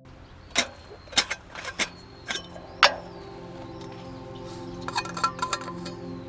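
A string of sharp knocks and clinks at irregular intervals, with a quick cluster near the end, over faint sustained background music.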